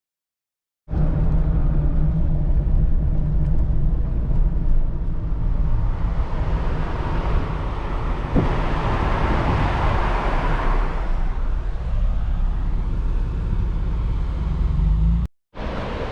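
Vehicle driving on the road: a steady low rumble of engine and tyres, with a louder rushing swell about seven to eleven seconds in. The sound starts abruptly about a second in and cuts off suddenly near the end.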